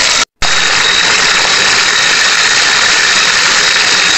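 Shrimp deep-frying in hot oil in a wok over a wood fire: a loud, steady sizzle, briefly cut to silence about a third of a second in.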